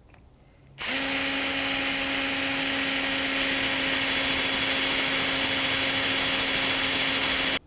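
Power drill boring the 25 mm latch hole into the front edge of a wooden door. It runs at a steady, even speed, starting suddenly a little under a second in and cutting off abruptly near the end.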